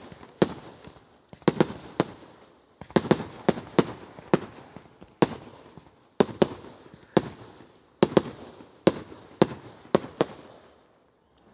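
Fireworks going off in quick succession: a rapid series of sharp bangs, about two a second, each with a short trailing hiss. They stop about a second before the end.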